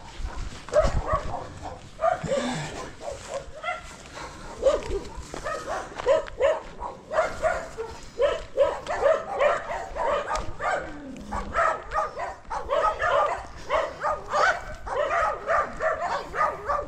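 Dogs barking in rapid, repeated barks that come thicker and overlap in the second half.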